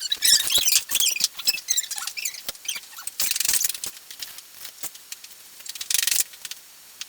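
Rapid small clicks, scrapes and squeaky high scratching from hand work on small parts, with two short bursts of hiss, one a little after three seconds in and one near six seconds.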